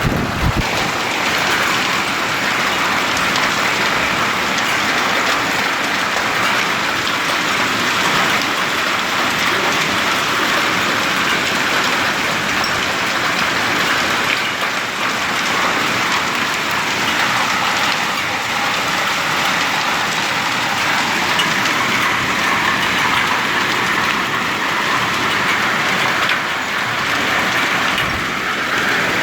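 Rain falling steadily, an even hiss of drops that holds at one level throughout.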